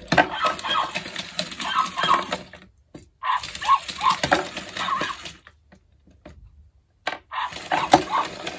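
Robot dog toy playing tinny electronic sound effects through its small speaker, in three bursts of about two seconds each with short pauses between.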